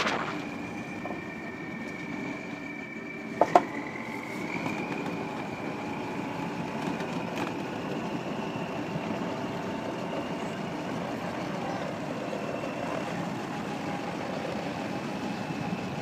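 Engine of a tracked all-terrain carrier running steadily, with a high whine that rises slightly about four seconds in. Two sharp knocks a little over three seconds in.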